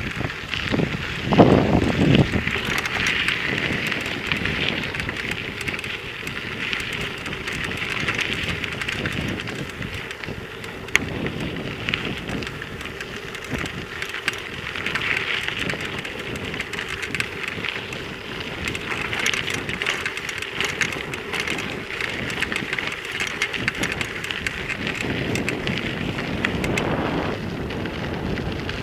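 Mountain bike riding a dirt trail, recorded on a hand-held iPod nano: a steady crackling rush of tyres on gravel and wind on the microphone, with scattered clicks. A louder low rumble comes about a second and a half in.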